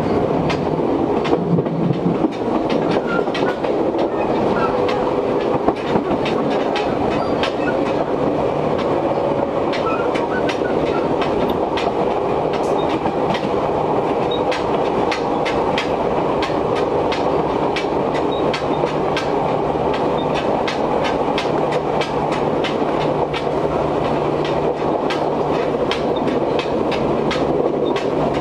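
Interior running sound of an Izuhakone Railway 1300 series electric train under way: steady rumble of the wheels on the rails with frequent sharp clacks and rattles, over strongly running air-conditioning. A low steady hum joins in a little over halfway through.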